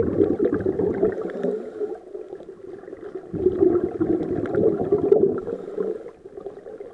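Scuba divers' exhaled bubbles from their regulators, a low underwater bubbling that comes in breaths: loud at first, dipping for about a second a third of the way in, loud again, then fading near the end.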